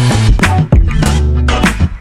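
Background music with a strong bass line and a steady beat, cutting off near the end.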